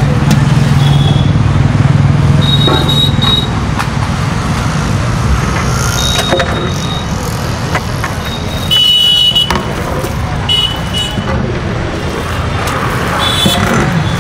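Street traffic: vehicle engines running past, with a heavy low rumble in the first few seconds. Short high-pitched toots come several times, the loudest about nine seconds in.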